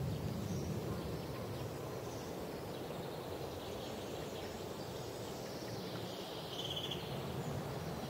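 Forest ambience: faint high chirps of small songbirds over a steady low rushing noise, with one short rapid trill late on.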